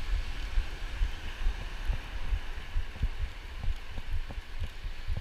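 Wind buffeting the microphone in uneven low thumps, over the steady hiss of ocean surf.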